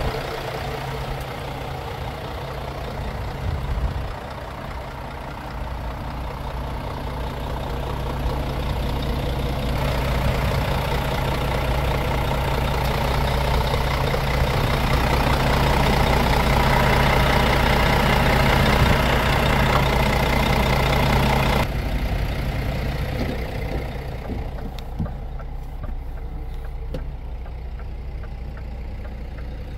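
Scania S500 truck's 13-litre straight-six diesel idling steadily. It is louder and fuller about ten to twenty-two seconds in, heard close at the open engine compartment, then turns muffled and quieter when heard from inside the cab.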